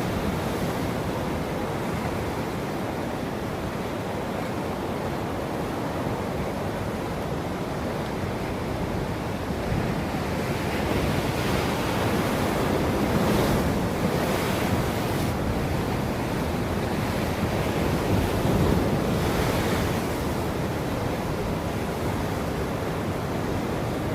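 Ocean waves breaking and washing on the shore in a steady surf, swelling louder about halfway through with two stronger breakers before easing back.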